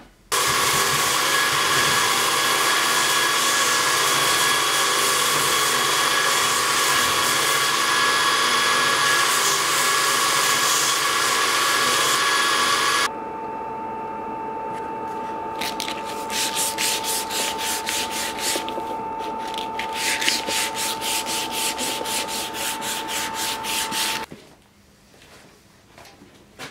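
Workshop machine running steadily with a high whine while the wooden scabbard is shaped. About halfway it gives way to a different motor's steady hum, with runs of quick rasping strokes as the wood is sanded against it, stopping abruptly near the end.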